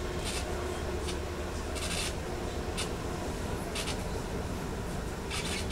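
Interior noise of a DB Class 422 S-Bahn electric multiple unit: a steady low hum with irregular short hissing scrapes about once a second.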